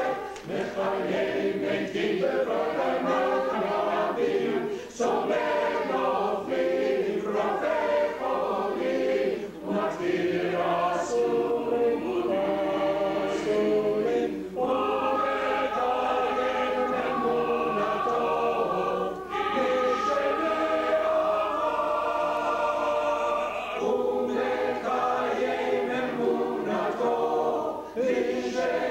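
Choir singing in rehearsal, several voices in sustained phrases, with brief breaks between phrases every four or five seconds.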